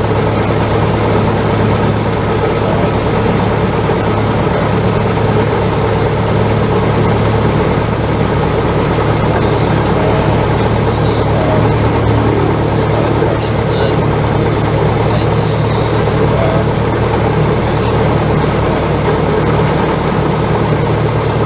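Cessna 172's piston engine and propeller idling steadily just after start, heard from inside the cabin.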